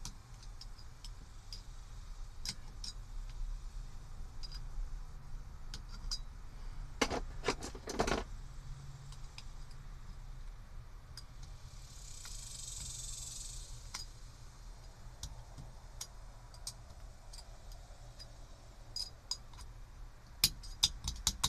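Scattered light clicks and small metallic rattles as the horn button's contact parts and screws are fitted into a steering-wheel hub by hand, with a cluster of clicks about seven seconds in and again near the end. A short hiss comes about halfway through.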